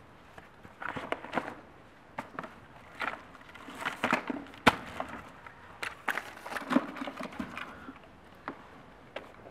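Irregular scuffs and crunches of footsteps on a gritty dirt floor, mixed with small knocks and one sharp click about halfway through.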